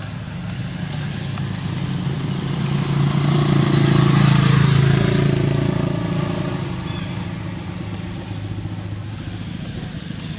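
A motor vehicle passing, growing louder to a peak about four seconds in and then fading, over a steady low engine hum.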